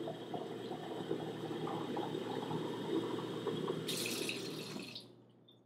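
Water running from a kitchen faucet into a drinking glass, a steady pouring sound that turns brighter for about a second near the end, then fades out.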